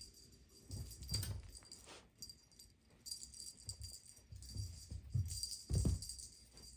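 A cat toy jingling and rattling in short bursts as kittens bat it about, with soft thumps of paws and toy hitting the floor, the loudest thump near the end.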